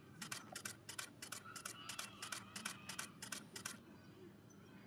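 Camera shutter clicking in a rapid burst, about five sharp clicks a second, stopping about a second before the end.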